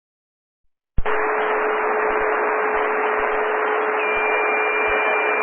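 Airband VHF radio hiss from an open transmission with no voice: steady static with a low steady tone, starting abruptly about a second in after dead silence. A second, higher steady tone joins about four seconds in.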